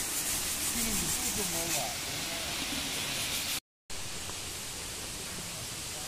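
Steady rushing of a waterfall and stream, with faint voices in the first two seconds. It breaks off for a moment after about three and a half seconds, then a duller steady hiss goes on.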